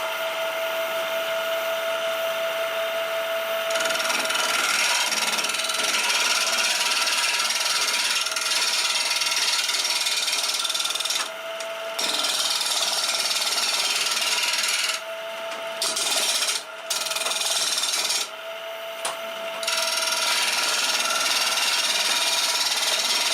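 Wood lathe motor running with a steady whine, then a turning chisel cutting into a spinning oak blank mounted between centres: a continuous rough scraping hiss. The cutting stops briefly a few times as the tool lifts off, leaving only the lathe's hum.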